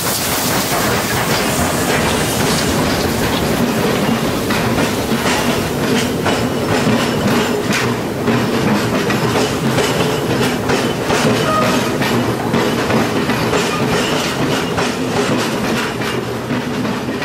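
Train of YZ22 passenger coaches rolling past behind a departing SY steam locomotive: a steady rumble with the wheels clicking over rail joints in a continual clickety-clack, easing slightly near the end.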